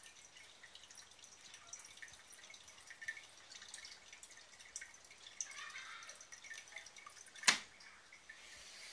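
Aquarium filter's return flow trickling and splashing into the tank, heard as a steady run of small drips and splashes. One sharp click near the end.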